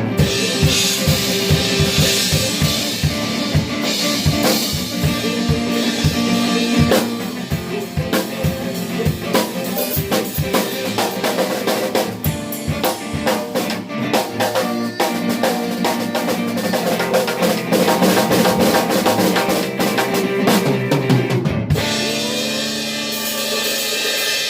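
Live church band playing: a drum kit keeps a fast, busy beat with kick, snare and rimshots over held instrument chords. Near the end the drums stop and only the sustained chords ring on.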